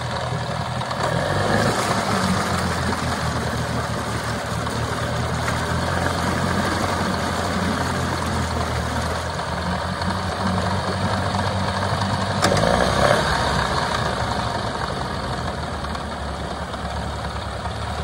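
Mercury 9.9 two-stroke outboard engine idling steadily in a test barrel, running smoothly on both cylinders now that a new power pack has restored spark to the dead cylinder. The engine briefly swells in loudness about two-thirds of the way through.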